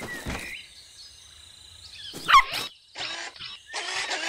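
Cartoon sound effects for an animated puppy: a loud falling whistle-like glide about two seconds in, then a run of short barks.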